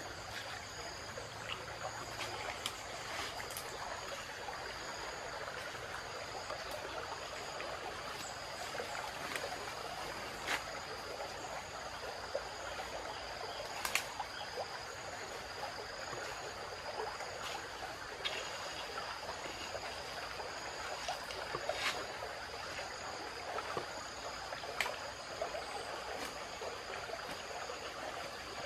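Wood campfire crackling, with scattered sharp pops every few seconds, over a steady rush of flowing river water and a high, steady drone of insects.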